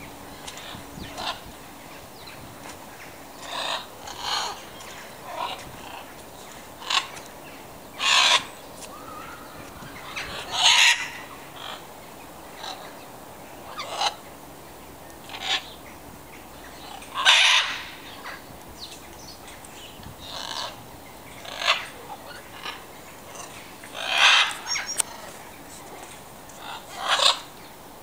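Macaws and parrots squawking: loud calls repeated every second or two, some in quick pairs, about fifteen in all.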